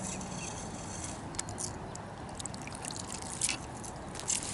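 A few sharp clicks and taps from a fishing rod and reel being worked on a kayak to pull a snagged lure free, over a steady hiss.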